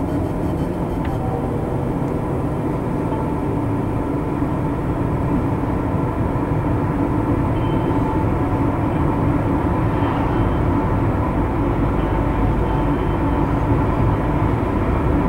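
Steady road noise of a moving car heard from inside the cabin: an even, low tyre-and-engine rumble with a faint steady hum over it.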